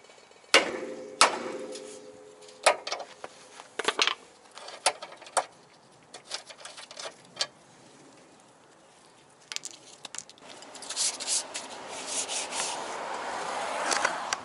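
Hammer blows on steel suspension parts, knocking a broken lower ball joint's stud loose from the control arm: about six sharp strikes in the first five and a half seconds, the first and loudest ringing with a metallic tone. From about ten seconds in, scraping and rubbing with small clicks as parts are handled.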